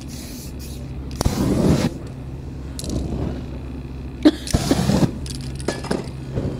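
Aerosol spray-paint can hissing in two bursts, about a second in and again past four seconds in, with a couple of sharp clicks between them, over a steady low hum.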